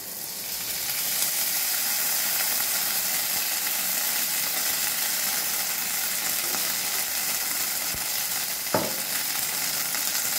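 Sliced onions and spices frying in oil in a non-stick kadai: a steady high sizzle that grows louder about a second in, as red sauce goes into the hot pan. One short sharp click comes near the end.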